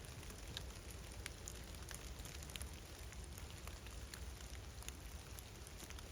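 Steady light rain, with scattered drops ticking irregularly.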